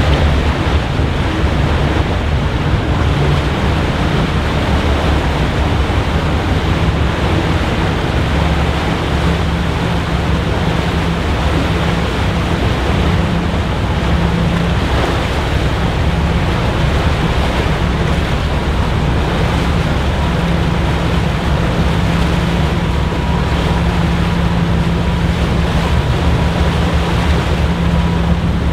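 Car ferry Coruisk's engines and propulsion running steadily as it manoeuvres away from the berth: a low, even drone under a loud rush of churned water and wind, with a faint steady whine joining in the last few seconds.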